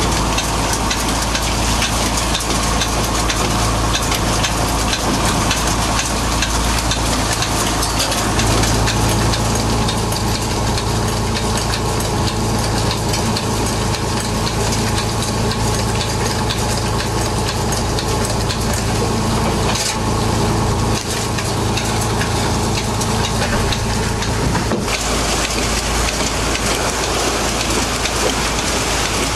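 Fishing boat's engine and deck machinery running steadily, with a low hum under a rushing hiss of wind and water. About 25 seconds in the hum drops out, leaving only the rushing hiss.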